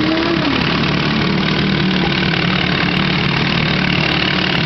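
1990s Evinrude 2.5 hp two-stroke outboard motor running steadily at idle, its freshly cleaned carburettor letting it idle smoothly.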